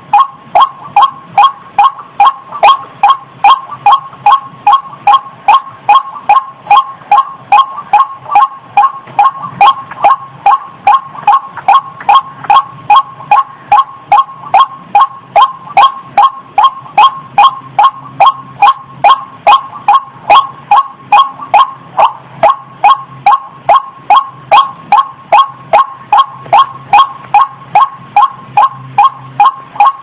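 White-breasted waterhen calling: a steady, unbroken run of short, sharp notes, about two and a half a second, played as a lure call for trapping the bird.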